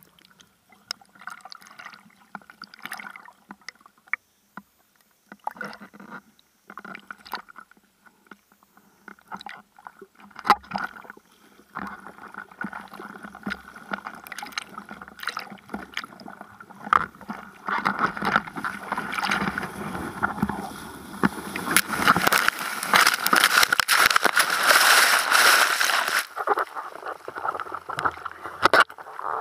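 Sea water lapping and sloshing against a bodyboard and the camera on its nose, scattered and quiet at first, then busier and louder over the last third.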